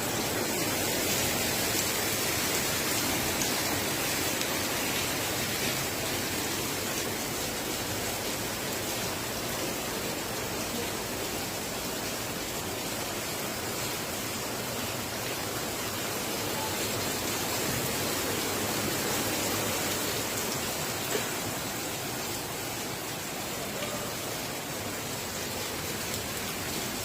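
Heavy rain falling steadily, an even downpour hiss without let-up.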